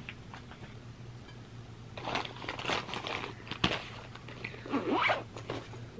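Rustling and scraping of folders and other things being handled close to the microphone, in irregular bursts from about two seconds in, with a sharp click partway through. A low steady hum runs underneath.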